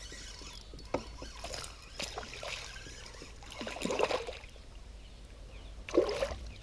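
Water splashing and sloshing around a kayak, with a few separate knocks and splashes, the loudest near the end.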